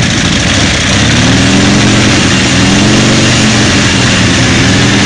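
Motorcycle engines running loud; the revs rise about a second in and are then held high and steady.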